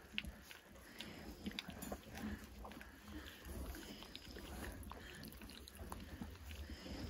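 Faint rustling and scattered small clicks from three-and-a-half-week-old Great Pyrenees puppies crawling about in wood shavings and nuzzling and mouthing at clothing.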